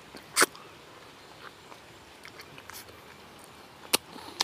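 Close mouth sounds of eating ripe durian flesh: three short, sharp sucking and lip-smacking sounds, one about half a second in and two near the end, with faint chewing between them.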